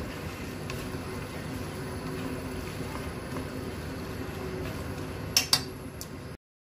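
Fettuccine in cream sauce simmering and sizzling in a nonstick frying pan, a steady bubbling hiss over a faint low hum. A little after five seconds come two sharp clicks, like a utensil striking the pan, then the sound cuts off abruptly.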